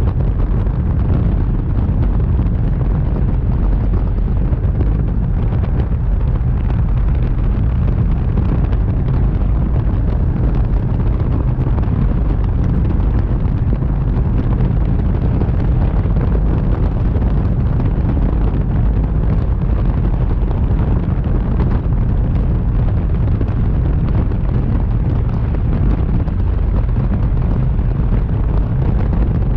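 Steady, loud rush of airflow buffeting the microphone of a camera mounted under a light aircraft's wing in flight, a deep rumble mixed with the drone of the aircraft's engine and propeller.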